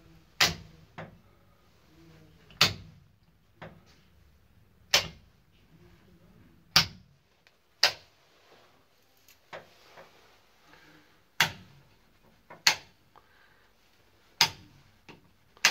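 Metal toggle switches on a race car's dash switch panel being flicked one by one: about nine sharp clicks a second or two apart, several followed by a softer click.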